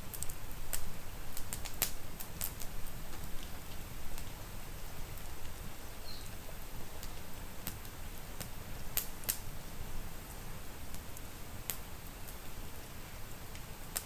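Wood fire crackling, with sharp scattered pops, several in the first few seconds and a close pair about nine seconds in, over a steady hiss of rain and a low rumble.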